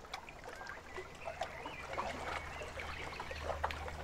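Lake water lapping and trickling at the shore, with scattered bird calls that sound like ducks or geese, and a low steady rumble underneath from about a second in.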